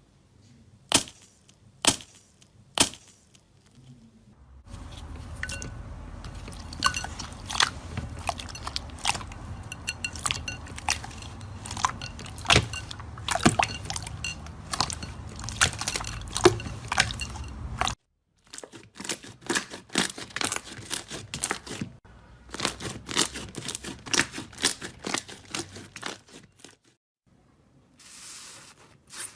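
Slime being squeezed and poked by hand: three sharp pops, then a long stretch of dense crackling studded with loud pops. After a sudden cut comes another run of rapid clicking pops, then a short hiss near the end.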